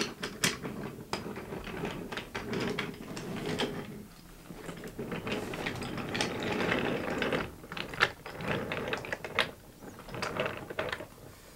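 Wooden-railway toy engines being pushed by hand along wooden track: a busy run of clicks and rattles as they roll and knock together.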